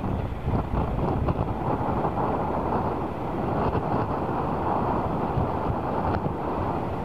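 Gusty wind buffeting the microphone over the steady rush of an Airbus A380's four jet engines as the airliner comes in to land.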